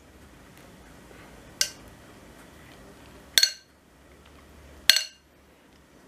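A plastic pastry brush clinking against a glass bowl of sauce three times, about a second and a half apart, each a short ringing clink, as the brush is dipped and tapped off between strokes of sauce onto yufka sheets.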